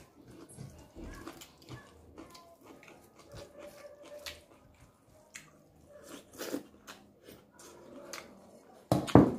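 Close-up mouth sounds of eating: wet chewing and lip smacks coming as scattered short clicks, with a cluster of much louder sharp smacks about nine seconds in.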